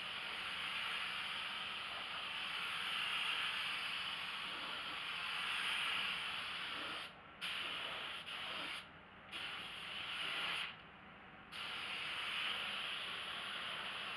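DeVilbiss GTi Pro gravity-feed spray gun hissing steadily as compressed air atomises paint onto a car body. The trigger is let off briefly three times, about seven, nine and eleven seconds in, and the hiss stops for a moment each time.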